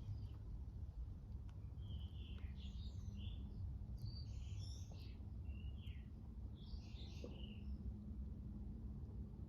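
A bird calling in about four short bursts of chirping phrases, starting about two seconds in, over a steady low background rumble.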